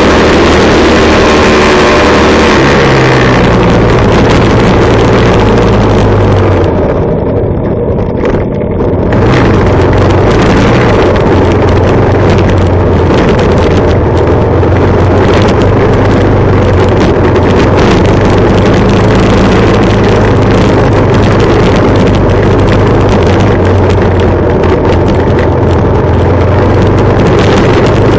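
Harley-Davidson Sportster Superlow XL883L's air-cooled V-twin engine running loud and steady while riding, its note shifting a few times and easing off briefly about seven seconds in.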